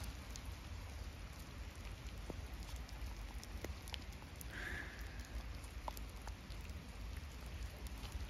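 Light rain pattering, with scattered faint ticks over a low wind rumble on the microphone. A brief high squeak stands out about four and a half seconds in.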